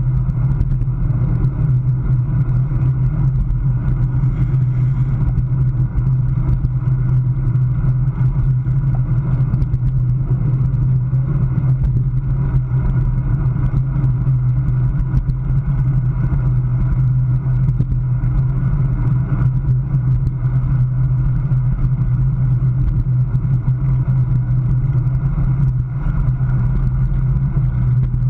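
Steady low rumble of wind buffeting a bicycle-mounted action camera's microphone, mixed with road and tyre noise from a road bike rolling at about 20 mph in a pack.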